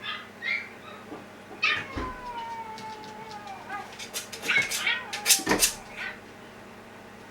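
Small dogs whining and howling: short cries, then a long howl that slowly falls in pitch, then a burst of sharp yelps and cries. It is one dog answering another's whining with a howl.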